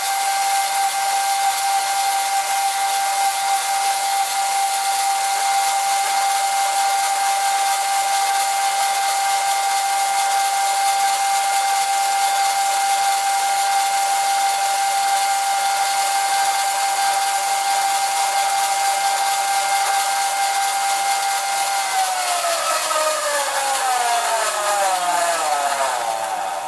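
Small homemade bandsaw running with a steady high-pitched whine and hiss. About 22 seconds in it is switched off, and the whine falls in pitch and fades as the motor and blade spin down.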